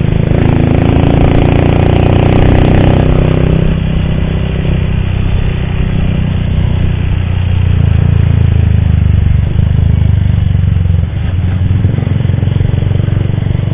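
Motorcycle engine running under way, heard from on the bike, a steady low drone that rises in pitch for the first few seconds and then settles. The rider says this bike has an ugly noise from its cam chain.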